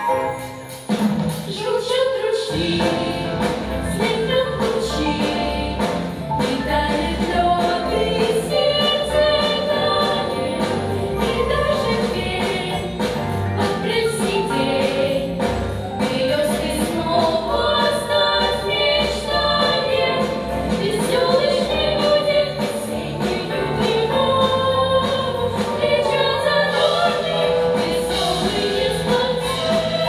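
A group of girls singing together into microphones over an amplified backing track. The low accompaniment drops away just after the start and returns with a steady beat about two and a half seconds in.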